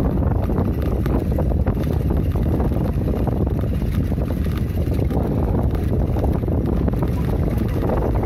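Wind buffeting the phone's microphone on the move: a steady, loud low rumble with no clear tone.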